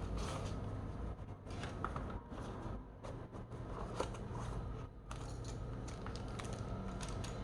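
Packaging being handled during a keyboard unboxing: irregular rustling and scraping with scattered small clicks and taps, over a steady low hum.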